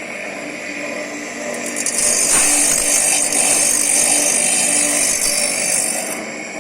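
Kucharczyk TYP2003 CNC circular-saw sharpening machine running with a steady motor hum. From about two seconds in to about six seconds in, a louder high grinding hiss comes in as the grinding wheel works the saw blade's teeth.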